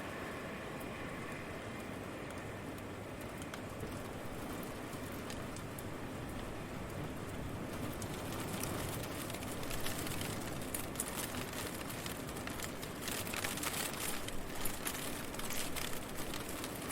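Steady rain over a low rumble, with sharp drop patter; about halfway through, the close drops hitting a surface become louder and crisper.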